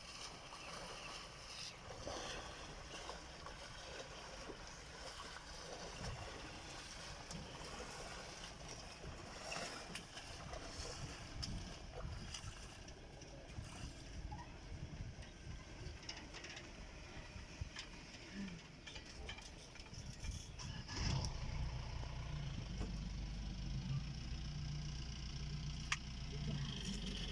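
Faint outdoor background noise with scattered light clicks, then, from about three-quarters of the way through, a vehicle engine idling steadily with a low hum.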